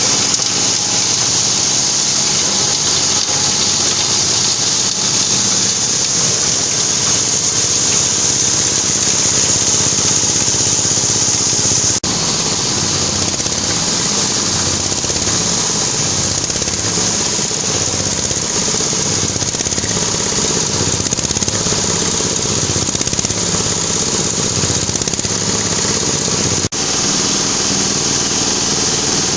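Corn cob grinding mill running, a loud steady mechanical din with a strong high hiss. The sound dips very briefly twice.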